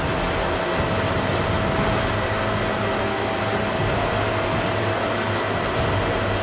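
Compressed-air gravity-feed spray gun hissing steadily as it sprays a coat of sealer, over a steady hum.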